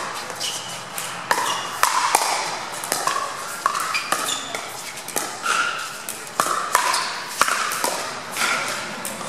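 Pickleball rally: hard paddles striking the hollow plastic ball in a fast exchange at the net, about a dozen sharp pocks with a short ringing ping, irregularly spaced, mixed with ball bounces on the court.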